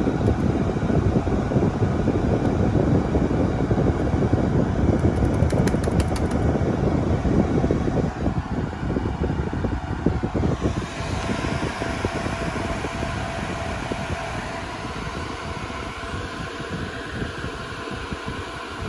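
Cooling fans of a Dell Compellent SCV2020 storage array running with steady fan noise. About ten seconds in the sound changes character, and then it grows gradually quieter.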